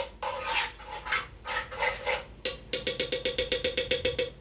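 A utensil stirring and scraping thick peanut sauce in a pan, the pan ringing with each stroke. Strokes come slowly at first; about a second and a half before the end they turn into a fast, even run of about ten strokes a second, then stop.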